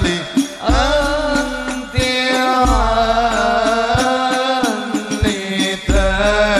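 A man singing an Arabic devotional qasida into a microphone in long, sliding, wavering phrases, over an accompaniment with a steady held note and low drum thumps about once a second.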